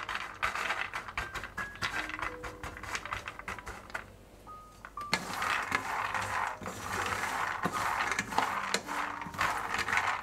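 Raw peanuts rattling and clicking against each other and a nonstick frying pan as they are stirred while dry-roasting. The clatter thins out briefly a little before halfway, then comes back denser about five seconds in.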